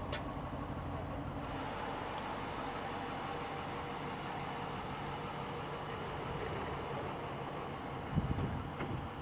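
Car engine idling steadily, with a short low thump about eight seconds in.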